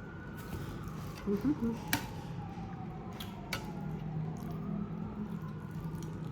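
Distant siren wailing in slow rising and falling sweeps, with two sharp clicks and a low steady hum in the second half.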